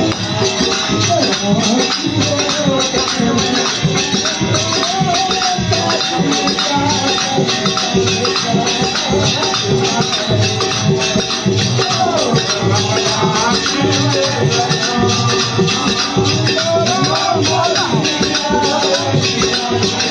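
Indian village folk music: a harmonium holding a steady drone and melody, a dholak barrel drum beating a steady rhythm, and small hand cymbals jingling continuously, with a voice singing over them.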